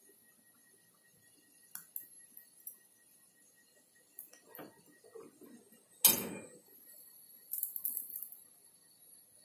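Dry cat-food kibble landing on a ceramic tile floor: scattered small clicks, a sharp knock about six seconds in, then a quick patter of pellets clattering and bouncing on the tiles.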